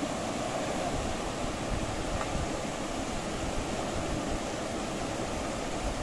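Steady rushing of a flowing river's current.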